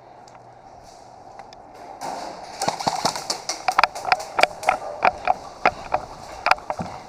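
Airsoft guns firing: a quick, uneven run of sharp cracks that starts about two seconds in, several a second.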